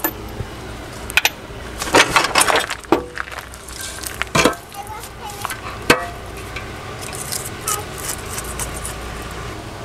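Rusty steel trailer hitch being wrenched loose and pulled out from under a pickup's frame: a string of metal clanks and knocks with scraping between them, a few of the knocks ringing briefly.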